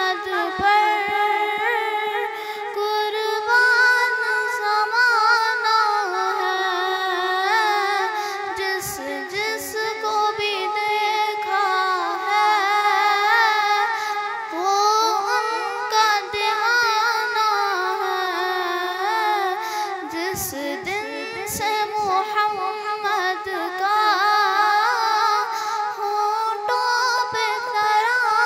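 A girl's solo voice singing a naat, an Urdu devotional poem in praise of the Prophet. She holds long notes with wavering ornaments on them.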